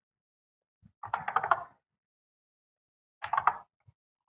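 Two short bursts of typing on a computer keyboard, about a second in and again past three seconds, with a lone key click just before each.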